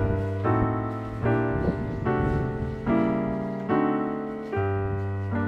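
Background piano music: chords struck a little under once a second, each one dying away before the next.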